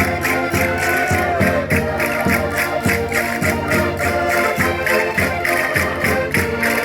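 Concertinas playing a lively folk dance tune in held, reedy chords over a quick, steady percussive beat.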